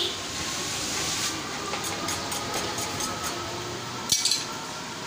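Steady background hiss, with a few light ticks around two to three seconds in and one sharp metallic clink about four seconds in as a butcher's knife is handled on the metal-strewn table.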